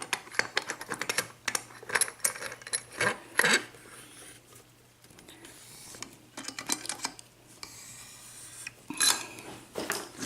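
Small metal tools and a lock being handled: picks and a tension wrench clicking and clinking against each other and the lock body. A quick run of sharp clicks over the first few seconds, a quieter stretch, then more clicks near the end.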